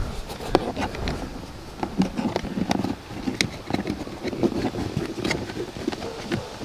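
Dash cam power cable being pushed by hand into the gap between plastic centre console trim and carpet. Irregular small clicks, taps and rustling as the cable and fingers rub and knock against the plastic and carpet.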